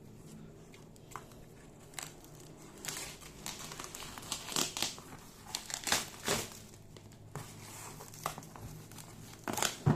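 Parcel packaging being opened by hand: crinkling and rustling with scattered sharp rips and knocks, the loudest burst just before the end.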